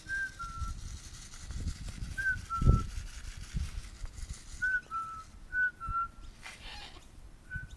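A clear two-note whistle, a short higher note dropping to a slightly lower held one, repeated about five times. Low thumps and rustling underneath, with one louder thump about two and a half seconds in.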